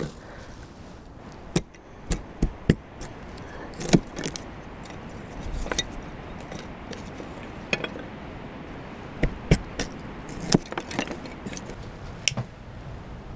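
Split wooden kindling sticks clattering and knocking together as they are handled and gathered up: about a dozen sharp, separate wooden knocks, with faint rustling of wood shavings between them.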